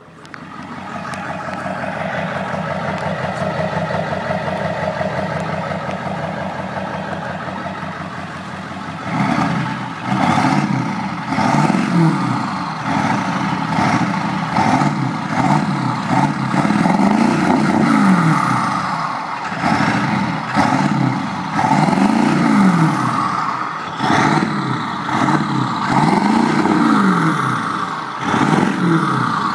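1999 Ford 7.3 Powerstroke V8 turbodiesel, with a Thruster II turbo, DI headers and a 5-inch straight pipe, running steadily for about nine seconds, then free-revved again and again, each rev rising and falling. A loud turbo whistle rises and falls with the revs.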